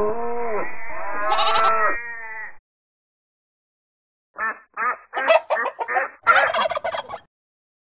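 Recorded farm-animal calls from a phone app: a long wavering animal call for the first two and a half seconds, then a turkey gobbling in a rapid series of short calls from about four and a half seconds in to about seven.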